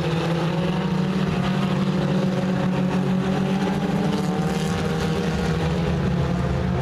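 Several four-cylinder stock race cars' engines running together on a dirt oval, heard from a distance as a steady drone whose pitch slowly rises and falls as the cars circle the track.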